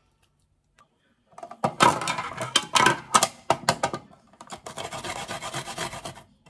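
A garlic clove rubbed quickly back and forth over a plastic garlic grater, a fast rasping scrape. Before it come irregular sharp clicks and scrapes of the plastic grater and container being handled on the steel counter.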